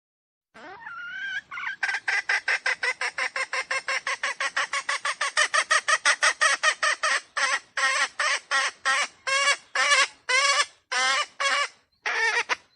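Red junglefowl (wild chicken) giving a long run of short, rapid squawking calls: about eight a second at first, slowing to about three a second over the last few seconds, with a brief pause just before the end.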